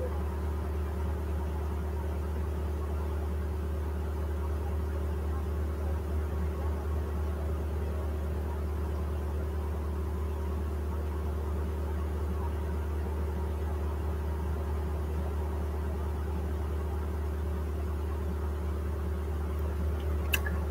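A steady low hum with a faint hiss that stays unchanged throughout, and one sharp click near the end.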